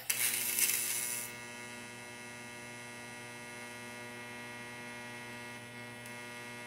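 Electric welding arc building up the worn back of a steel Hurst shifter stick: a sudden loud hiss as the arc strikes, lasting about a second, then a steady electric buzzing hum while the arc is held.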